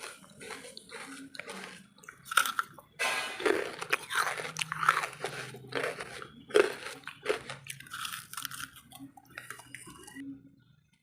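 Wood charcoal being bitten and chewed: a run of sharp, dry crunches, loudest in the middle, that stops shortly before the end.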